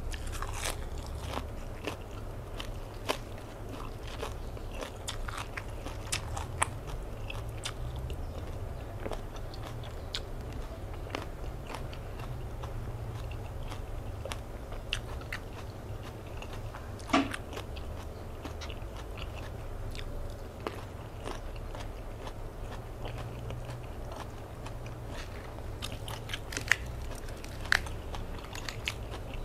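Close-up chewing and crunching of fresh romaine lettuce and herbs, with many short wet mouth clicks over a steady low hum. Near the end come a few crisp snaps as a lettuce leaf is broken off.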